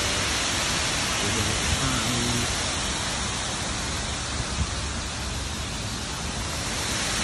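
Steady rushing noise of water cascading down a large waterfall over a rock face, with a couple of faint knocks about halfway.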